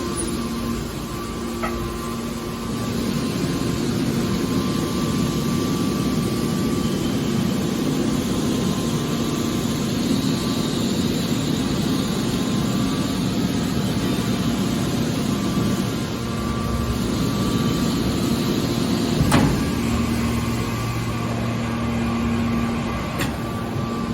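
Hydraulic scrap-metal baler running with a steady machine hum from its motor and pump. There is a single sharp knock about four-fifths of the way through.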